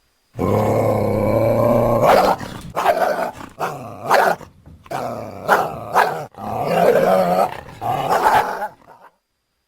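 Creature vocalizations for an extinct dog-like mammal (Cynodictis), made from coyote and hyena recordings: a drawn-out growl-like call for about two seconds, then a series of short, sharp calls.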